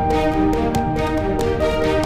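Instrumental background music: held melodic notes over a steady beat.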